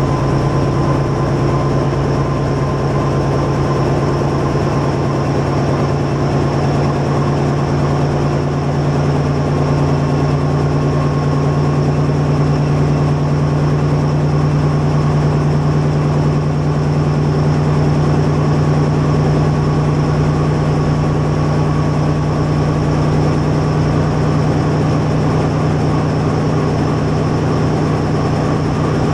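Historic Ganz-built Árpád diesel railcar heard from its driving cab while running at speed: a steady engine drone over wheel-on-rail noise.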